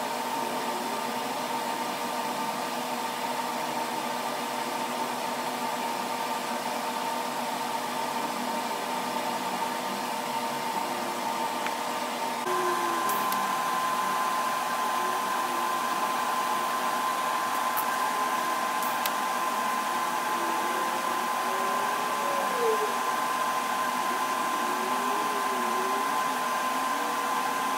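TIG welding arc on a steel generator tray, a steady hiss with a hum, as stitch welds are laid along its edge. It gets a little louder about twelve seconds in.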